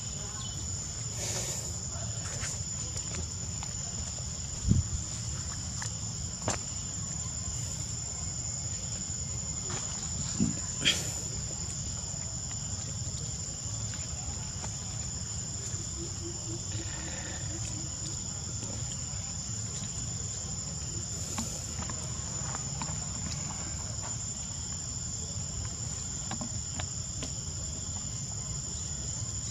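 Steady high-pitched drone of insects over a low background rumble, with a few brief knocks: the loudest about five seconds in, and two more around ten to eleven seconds in.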